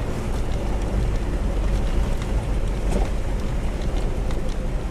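Steady low rumble of a 4x4 heard from inside the cab as it drives down a rocky shelf road. Small clicks and rattles from the tyres on loose rock and from the cab come through it.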